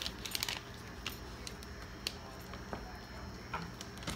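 Scattered quiet clicks and ticks from hands and a knife working a raw turkey wing on a plastic cutting board during deboning. A few come close together at the start, then single clicks every second or so.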